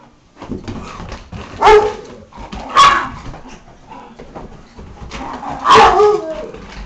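Dogs at rough play, with three loud, sharp barks: two about a second apart, then a third about three seconds later that wavers down in pitch. The barks come over continuous scuffling and thumping of the miniature pinscher and rottweiler puppy chasing each other on carpet.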